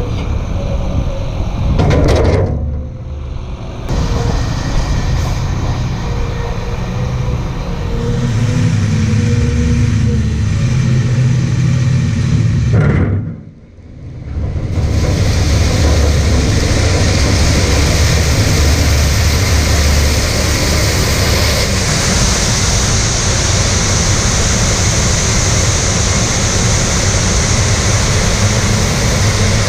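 Heavy farm machinery running steadily, with a brief dip in the sound about two seconds in and a deeper one near the middle.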